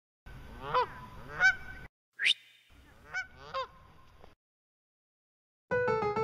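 Two loud Canada goose honks, then a short rising whistle and two fainter honks. Near the end an electric-piano theme tune starts.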